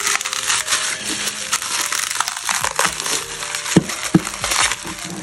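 Bubble wrap crinkling and crackling as a die-cast toy car is worked out of it by hand, with two louder snaps close together about four seconds in.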